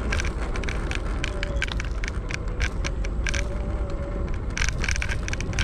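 Segway Ninebot ES4 electric scooter riding on solid tyres over rough pavement: a steady low rumble with irregular rattling clicks as the scooter vibrates, busiest near the end, and a faint wavering whine.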